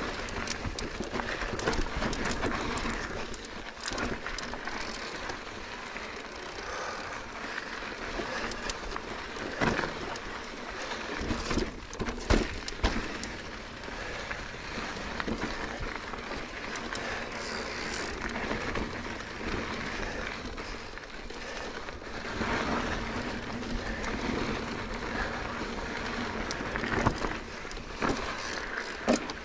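Mountain bike riding over a loose, rocky trail: a steady rush of tyre and rattle noise, with several sharp knocks as the wheels hit rocks, the loudest about 12 seconds in.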